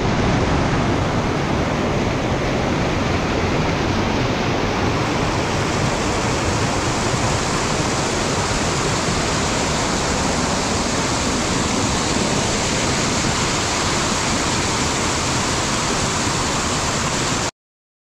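Waterfall rushing with a steady, even roar of falling water, which cuts off abruptly near the end.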